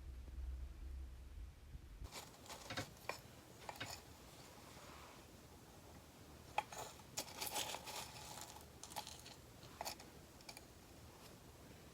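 Faint scattered clicks, taps and a soft rustle of stationery and paper being handled at a desk, with one sharper click about six and a half seconds in.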